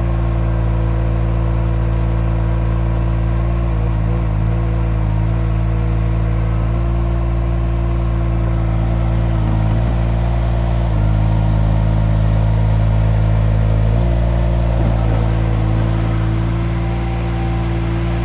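Mini skid steer's engine running steadily under work, its note shifting briefly a few times as the load changes.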